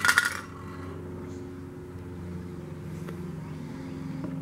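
A brief, loud clatter of metal parts being handled on a wooden workbench, then a steady low hum with several held tones.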